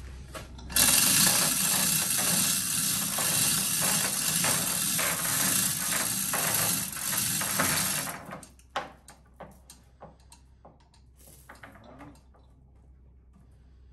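Chain hoist lifting a suspended boat hull: a loud, dense clatter of chain running through the hoist with rapid ratchet clicking for about seven seconds. It stops suddenly, leaving scattered light chain clinks.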